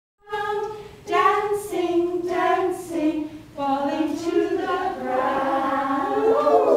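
A group of adults singing a children's song together in short phrases with brief breaks, the voices overlapping more near the end.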